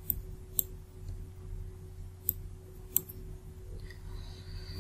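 Computer mouse clicking a handful of times, short sharp clicks spaced irregularly, over a faint steady electrical hum.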